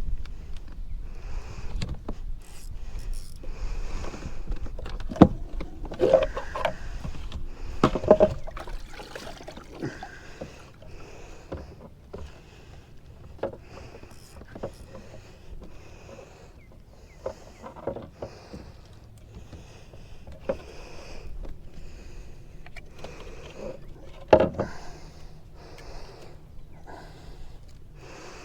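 Kayak on the water, with short water swishes about once a second like paddle strokes. A few sharp knocks stand out, the loudest about 24 seconds in.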